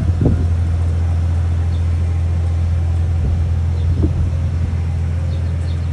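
Steady low drone of a vehicle being driven, its engine and road noise running continuously, with a couple of faint bumps about a quarter second and about four seconds in.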